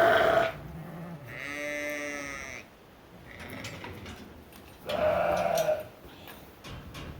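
Sheep bleating in a barn: a long quavering bleat about a second and a half in and a loud bleat about five seconds in.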